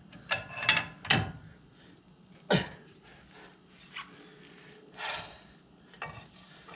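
A bar and tools being handled, giving a string of separate knocks and clunks with a short scrape, the loudest knock about two and a half seconds in.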